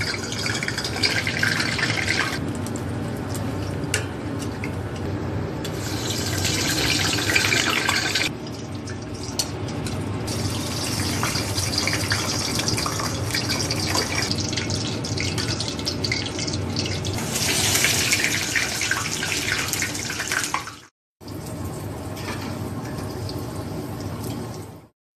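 Deep-frying in a pot of hot oil: a steady sizzle with scattered pops and crackles as sambosas and potato balls fry. It gets brighter and duller by turns, changing abruptly several times, and breaks off briefly near the end.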